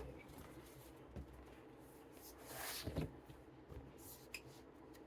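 Faint handling noises of thick cardboard jigsaw track pieces being fitted together: a few light taps and a short rustle about two and a half seconds in.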